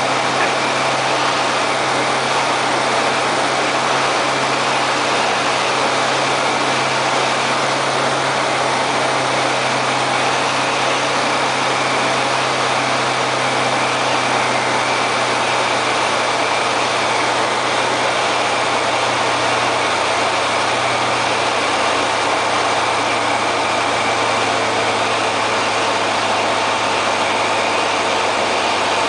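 Diamond Katana DV-20's Rotax 912 flat-four engine and propeller running steadily, heard inside the small cockpit together with airflow noise, through the approach and touchdown of a touch-and-go landing.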